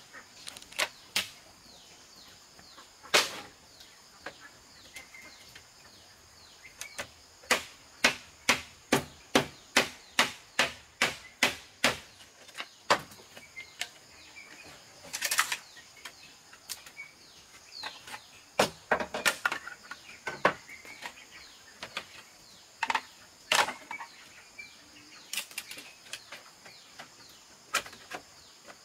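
Repeated sharp knocks of a hand tool striking, with a steady run of about two blows a second in the middle and scattered single blows around it, over a steady high insect buzz and faint bird chirps.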